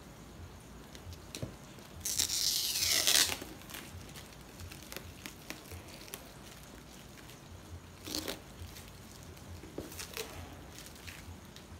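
Plastic wrapping torn and pulled off a cardboard parcel: one loud rip lasting about a second, starting about two seconds in, then shorter, quieter plastic crinkles around eight and ten seconds.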